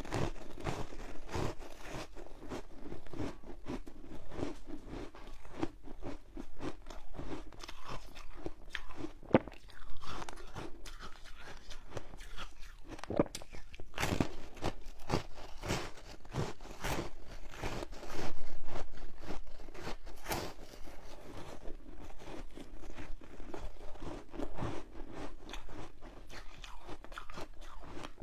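Close-miked biting and crunchy chewing of passion fruit–flavoured frozen foam ice, a dense run of sharp crackles with a louder crunch about eighteen seconds in.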